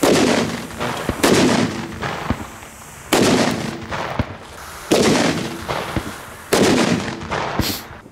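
A series of about five loud firecracker bangs, one every one and a half to two seconds, each dying away over about a second. The first comes from a Mega Dynamit Class 3 firecracker going off on open ground.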